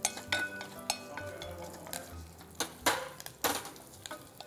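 Wooden spatula stirring and knocking against a stainless steel saucepan, with several sharp knocks, while mustard seeds, curry leaves and dried red chilies fry in hot oil for a tempering.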